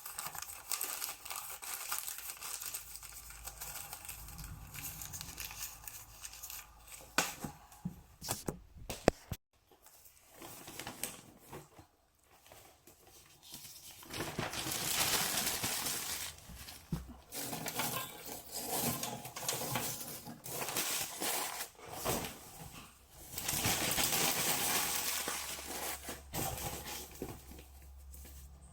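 Crinkling and rustling, like paper or plastic being handled, with scattered sharp clicks. There are two louder stretches of rustling, one about halfway through and one near the end.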